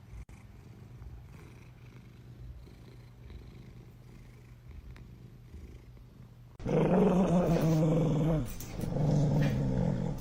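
Cat purring, faint and low at first, then much louder and closer from about two-thirds of the way in.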